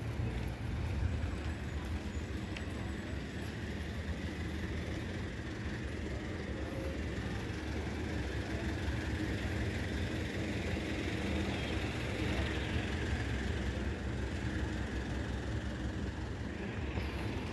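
Street traffic on a busy city avenue: a steady rumble of passing cars and buses, swelling a little about two-thirds of the way through as a vehicle goes by.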